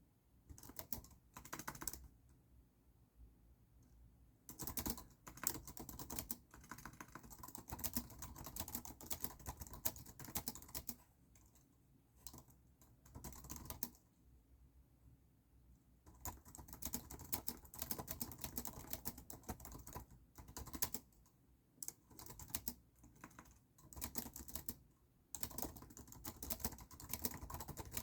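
Computer keyboard typing in runs of rapid keystrokes broken by short pauses, with the longest lulls about 11 to 12 seconds in and again from about 14 to 16 seconds in.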